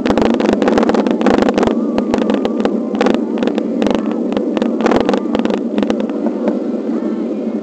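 Riding noise of a bicycle on a rough road as picked up by a camera carried on the bike: a steady rumble of tyres and wind, broken by frequent sharp clicks and rattles, as of the mount shaking over the bumpy asphalt.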